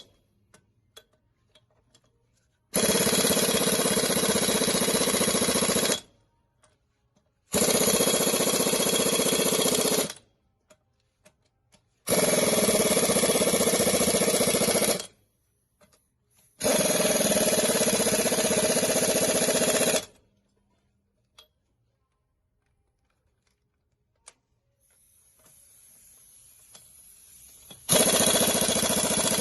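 Impact wrench run in five bursts of about three seconds each, starting and stopping sharply, as the wheel lug nuts are driven tight.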